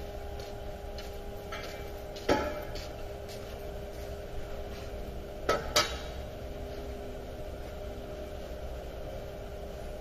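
Sharp metal clanks over a steady hum: one about two seconds in, then two close together near six seconds as a steel jack stand is set down on the concrete floor.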